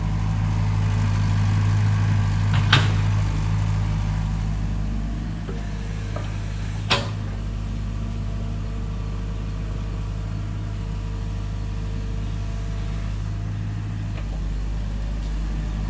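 Excavator's diesel engine running steadily, swelling slightly in the first few seconds, with two sharp knocks, about three and about seven seconds in.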